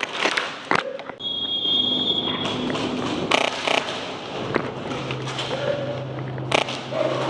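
Airsoft guns firing in a CQB game: scattered single sharp pops and a quick burst of several shots partway through, over steady background noise.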